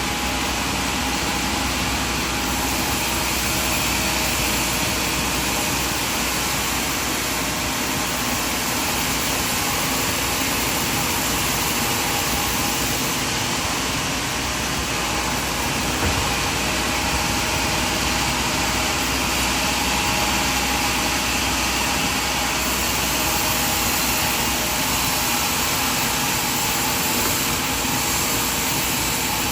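Sawmill machinery running steadily, a constant engine-like drone with a dense, even noise and no pauses.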